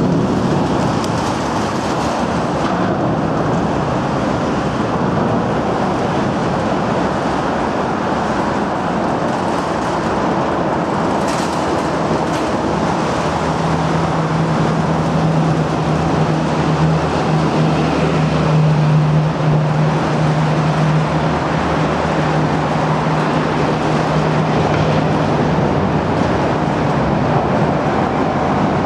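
Steady traffic rumble heard from a walkway alongside the roadway of an elevated bridge, beneath the deck structure. A low, steady hum joins in about halfway through and fades out near the end.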